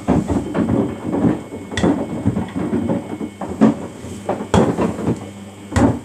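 Samsung front-loading washing machine drum tumbling a wash, with water sloshing and the loose plastic detergent drawer inside it clattering against the drum in irregular knocks, over a low steady hum.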